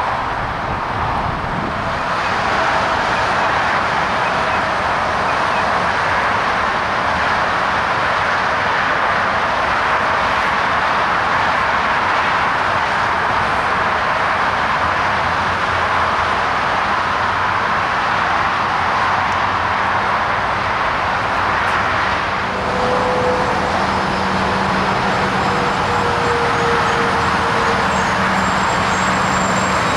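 Comeng suburban electric train arriving at the platform over a steady loud rush of road traffic. In the last third the train's low hum and a slowly falling whine come in as it slows, with a faint high squeal near the end.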